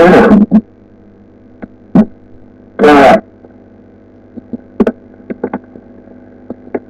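Steady electrical mains hum on a voice-chat line, broken by short bursts of a voice near the start and again about three seconds in, with a few faint clicks in the second half.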